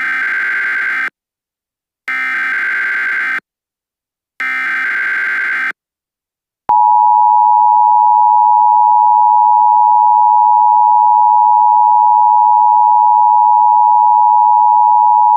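Emergency Alert System SAME header: three short bursts of buzzing digital data, each about a second long. Then, about seven seconds in, the steady, loud two-tone EAS attention signal begins, announcing the start of a new alert.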